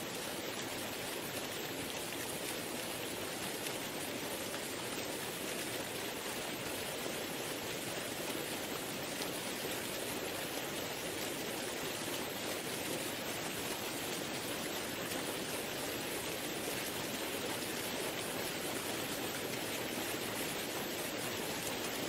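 Waterfall: a steady, even rush of falling water with no change in level.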